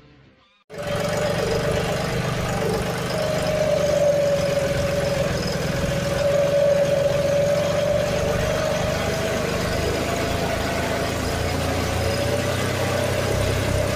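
John Deere 5310 tractor's three-cylinder diesel engine running steadily under load while pushing soil with a front dozer blade, a steady whine riding over the engine note. It starts abruptly about a second in.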